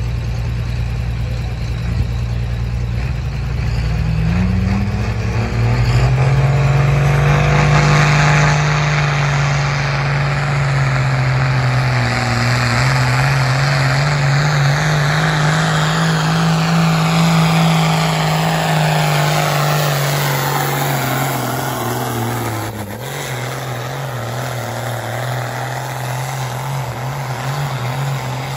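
Ford 9000 tractor's six-cylinder diesel engine at full throttle pulling a sled down the track, revving up about five seconds in and holding high revs, its pitch dropping near the end as the pull slows.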